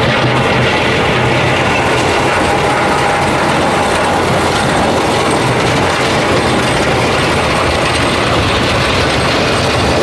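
John Deere 325G compact track loader on the move, its diesel engine running steadily under a dense, continuous clatter from the steel-and-rubber tracks and the front blade scraping snow and gravel.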